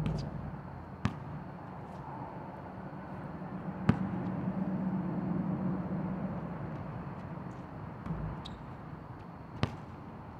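Basketball hitting the rim and bouncing on an outdoor asphalt court: four sharp, spaced smacks, the loudest about four seconds in, and a softer thump near the end. A low rumble swells and fades in the middle.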